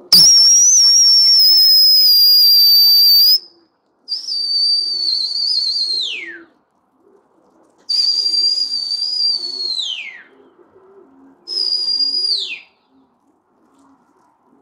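Four loud, high whistle blasts, each held on one note. The first runs about three seconds; the next three each slide steeply down in pitch as they end. Domestic pigeons coo softly underneath.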